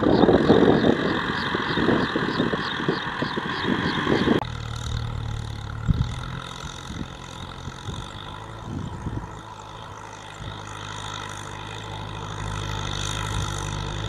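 Kubota M6040SU diesel tractor engine running under load while ploughing. For the first four seconds the sound is louder and rougher, with wind buffeting the microphone. After a sudden change it settles into a steadier, quieter engine hum with a few dull thumps.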